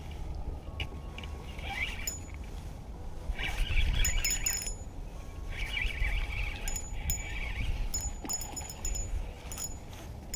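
Spinning reel cranked in short bursts while a hooked fish is reeled in: a light whirring from the reel, with small metallic clicks and ticks.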